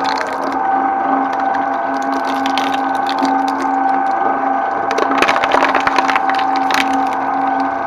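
Twin-shaft shredder running with a steady whine from its drive, its toothed cutters crunching and cracking plastic in a cluster of sharp cracks about five to six seconds in, and once more near the end.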